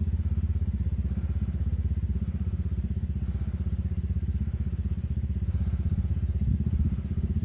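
Generator engine running steadily with a fast, even pulse.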